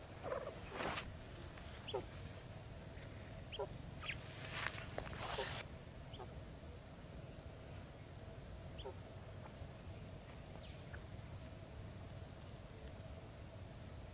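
Birds calling with short, falling chirps scattered through, a dozen or so in all. In the first six seconds there are a few short bursts of noise on top.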